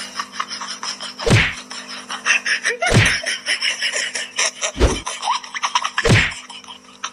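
Four loud thumps, about one and a half seconds apart, over constant rapid clicking and a steady low hum.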